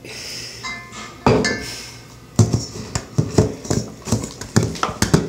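A utensil stirring slime in a stainless steel mixing bowl, knocking and clinking against the bowl. There is one strong knock a little over a second in, then a quick run of about four knocks a second from about two seconds in.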